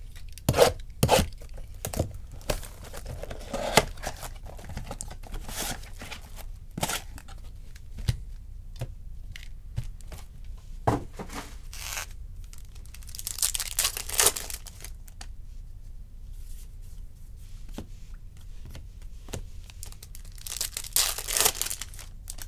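Trading card packs from a Bowman baseball Mega Box being torn open, wrappers ripping and crinkling, with scattered clicks and rustles as the box and packs are handled. There are two longer tearing rips, one a little past halfway and one near the end.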